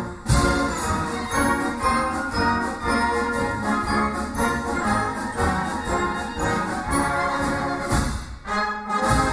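A German wind band plays a lively march on a steady beat. The music thins out briefly near the end, then comes back in with a loud accented beat.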